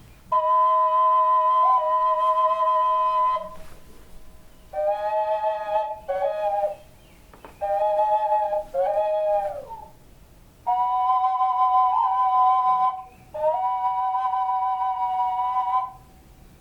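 Flute-like wind instrument playing slow, held phrases in which two notes sound together, about seven phrases separated by short pauses, several ending with a downward bend in pitch.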